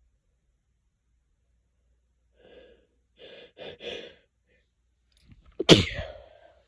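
A few quick gasping breaths build up, then one loud, sharp sneeze near the end with a short voiced tail.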